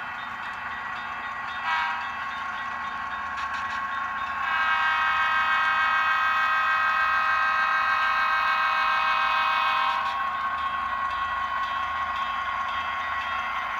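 Horn of a Tsunami2 sound-equipped HO scale model diesel locomotive, a recorded diesel air-horn chord played through the model's speaker, blowing for a grade crossing: a short toot about two seconds in, then a long blast from about four and a half to ten seconds, easing off afterwards.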